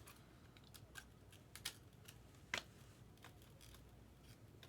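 Faint clicks and flicks of trading cards being handled and slid through the hands, the sharpest click about two and a half seconds in.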